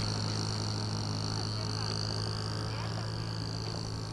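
RC model Cessna 152's motor running steadily with a high whine over a low hum, slowly fading. A few faint chirps are heard over it.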